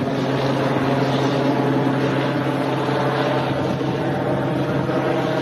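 Steady drone of a running engine, an even low hum.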